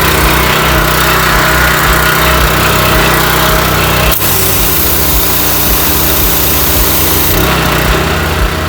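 Single-cylinder Honda GX390 petrol engine driving a pressure washer pump, running loud and steady at full throttle with a high hiss over it; the sound breaks briefly about four seconds in, then carries on.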